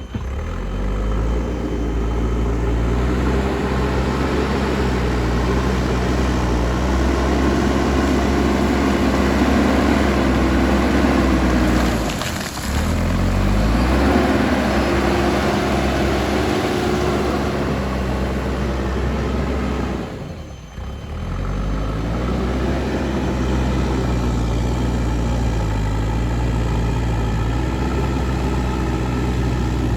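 JCB backhoe loader's diesel engine running under working load, a steady drone whose pitch rises and falls a little as the load changes. The sound drops out briefly twice, about twelve and twenty seconds in.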